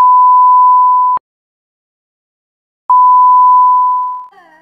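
Two loud electronic beeps, a pure steady tone at about 1 kHz: the first ends abruptly with a click just over a second in, the second starts about three seconds in and fades out near the end.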